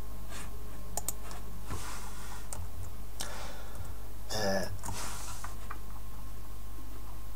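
A few scattered computer keyboard keystrokes and mouse clicks over a steady low hum, with one brief louder burst of noise a little past halfway.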